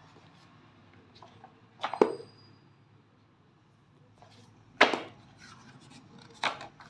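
Paperback book handled on a tiled floor: turned over and opened, its cover and pages giving three sharp slaps with rustling, about two seconds apart.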